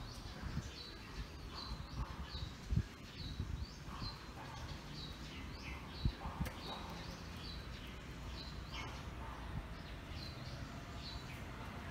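A bird chirping over and over: short high notes about twice a second, over a low background rumble with a few soft knocks.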